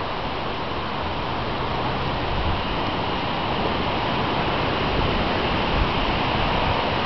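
Steady rushing noise of wind buffeting the microphone, with an uneven low rumble.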